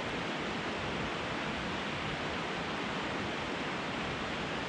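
Steady, even rush of water from a large waterfall.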